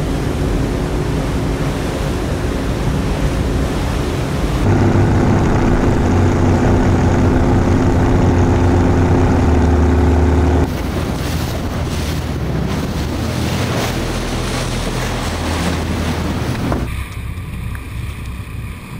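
Inflatable speedboat's outboard motor running steadily under way across choppy sea, with water rushing past the hull and wind buffeting the microphone. The engine note and loudness shift abruptly three times, about 5, 11 and 17 seconds in.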